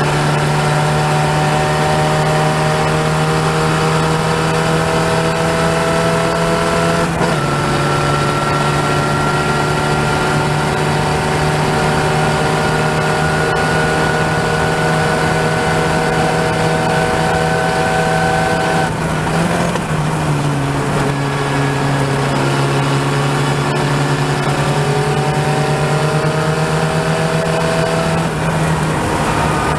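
Open-wheel formula race car's engine heard from onboard, pulling steadily under power with its pitch slowly climbing, over a constant rush of wind and road noise. The pitch drops suddenly about seven seconds in and again near twenty seconds, the sound of gear changes, then climbs again.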